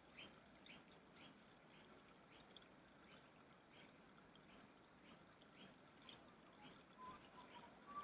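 Faint bird chirps repeated evenly, about two a second, over a quiet hiss.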